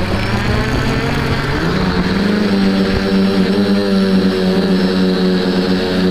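V-tail quadcopter's electric motors and propellers whining, rising in pitch as it throttles up and lifts off about two seconds in, then holding a steady, slightly wavering hum in the air.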